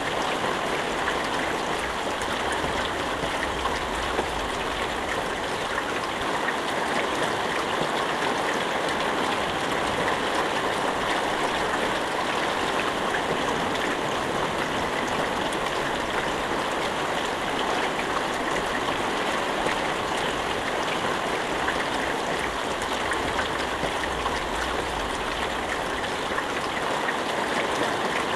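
Steady rain falling, an even hiss of drops with no thunder.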